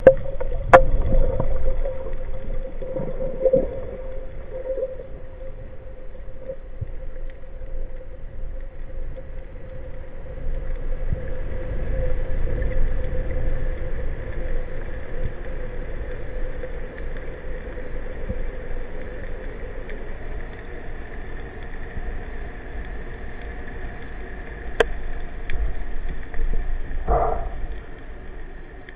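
Underwater ambience picked up by a camera in its waterproof housing during a breath-hold dive: a low rumble with a steady hum that fades after about twenty seconds, a few sharp clicks, and a short louder sound near the end.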